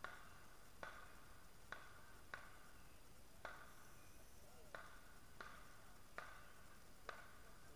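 Faint, sharp pops from a burning Christmas tree, nine of them at irregular intervals of about a second, each with a short ringing tail.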